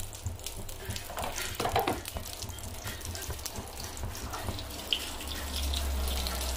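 Desi ghee tadka sizzling and crackling in a small steel pan over a gas flame, with mustard seeds, cumin and red chilli frying in it.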